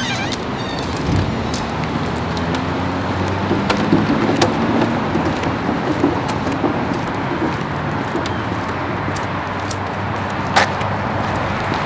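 Steady outdoor city noise like distant traffic, with a low hum under it. A few sharp clicks stand out, the clearest near the end as a cigarette lighter is struck.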